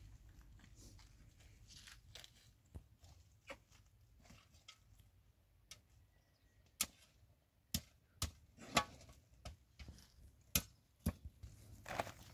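Irregular light knocks and clicks, about ten spread unevenly over a low steady hum, the loudest about nine seconds in.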